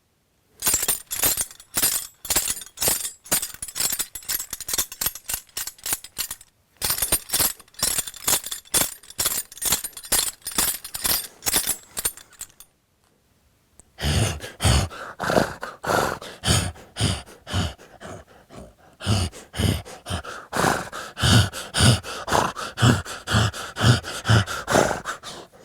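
Horse bridle performed as Foley: its metal bit rings and buckles jingle and clink quickly in a trotting rhythm. After a short pause about halfway through, the jingling resumes with regular low hoof-like thuds under it.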